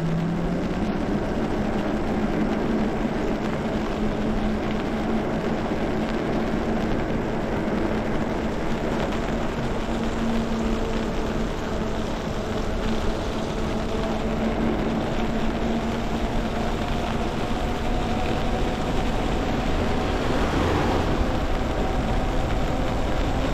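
Electric bike riding on wet pavement: a steady hub-motor whine over the hiss of tyres on the wet road and wind rushing past. There is a brief louder swell about twenty seconds in.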